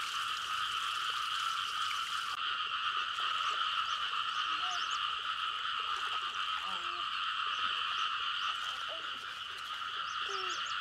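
A steady, dense chorus of calling animals that does not let up, with faint short chirps scattered through it.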